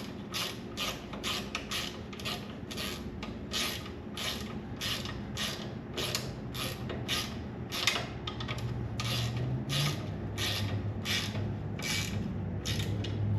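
Hand ratchet wrench cranked back and forth in steady strokes, about two a second, running a nut down on the Jeep's front steering linkage before final torque.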